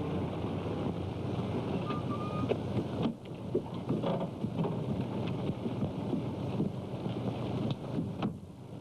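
Car engine running as the car drives along a road, a steady rumbling noise.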